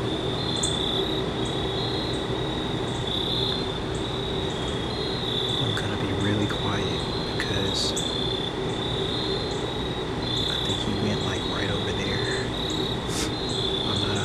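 Crickets chirping in a steady pulsing chorus, with a low steady hum underneath and a few short separate chirps in the second half.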